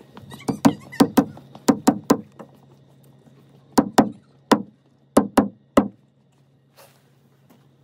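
Claw hammer driving small nails into the wooden floor boards of a wood-fired hot tub: about a dozen sharp taps in quick groups of two or three, stopping about six seconds in.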